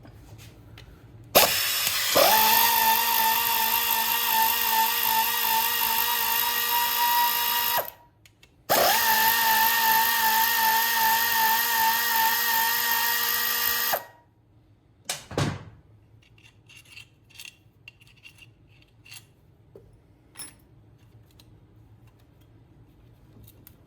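Cordless drill/driver motor running in two long runs of about six and five seconds, each spinning up quickly to a steady whine, with a short gap between; light metal clicks and clinks of parts being handled follow.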